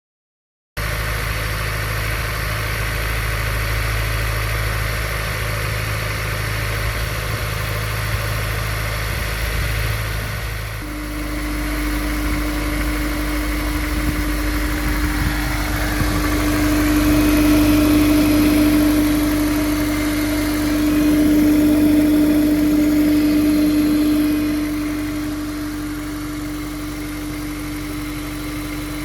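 Honda S2000's four-cylinder engine running. About ten seconds in, a loud, steady droning tone sets in and holds, swelling through the middle. This is an abnormal noise that the owner suspects comes from the intake manifold or an aftermarket power filter.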